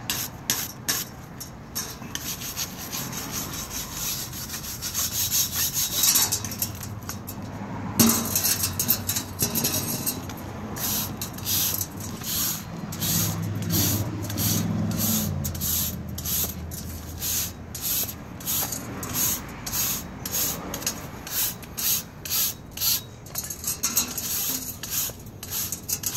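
Wire brush scrubbing the stainless steel screen of a Vactor 2100 micro strainer (particulate filter), scraping out packed twigs and debris. The brush goes in quick repeated strokes, about two a second in the second half.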